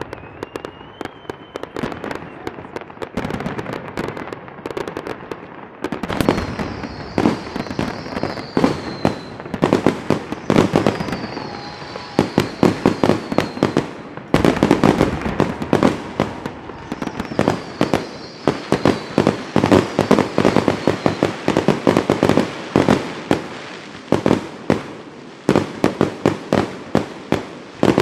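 Fireworks going off in a dense run of sharp pops and crackling, rapid volleys of several bangs a second from about six seconds in. Several high whistling tones fall in pitch over the popping, and a short rising whistle comes near the start.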